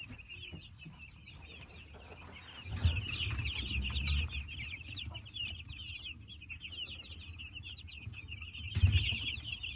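A flock of week-old meat-bird chicks peeping, a dense continuous chatter of short high peeps. A low rumble comes in about three seconds in, and a single low thump sounds near the end.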